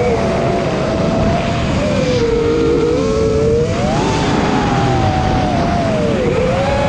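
FPV racing quadcopter's motors whining in flight over a steady rush of propeller and wind noise, the pitch dropping, then rising about four seconds in, dipping again and climbing as the throttle changes.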